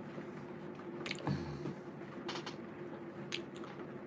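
Quiet room tone with a steady low hum, broken by a few faint small clicks and one soft thump.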